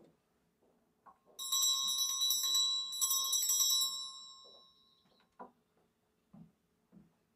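A small altar handbell shaken, ringing in rapid repeated strikes for about two and a half seconds, then dying away. A single sharp knock follows.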